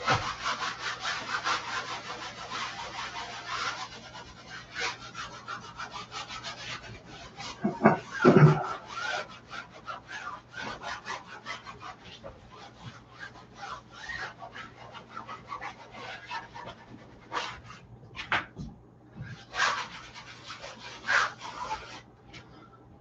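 A cloth rubbing and scrubbing wet oil paint across a stretched canvas. Quick back-and-forth strokes for the first few seconds, then slower, scattered strokes, with one louder low bump or thud about eight seconds in.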